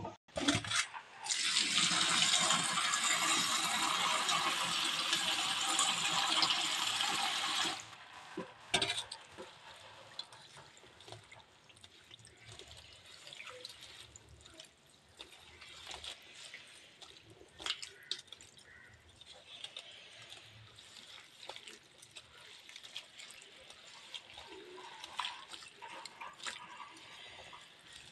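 Water pouring into a steel vessel for about seven seconds, stopping sharply. Then hands swishing and rubbing chopped drumstick (moringa) leaves in the water, with small splashes and clicks.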